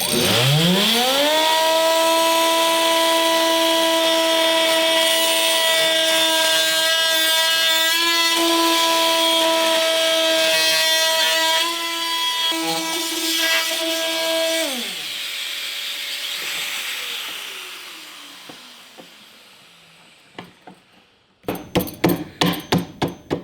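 Festool Vecturo OSC 18 cordless oscillating multitool spinning up to a steady high buzz as its blade plunge-cuts an electrical-box opening, running for about fourteen seconds. It is then switched off and winds down with falling pitch. Near the end come several sharp clicks and knocks.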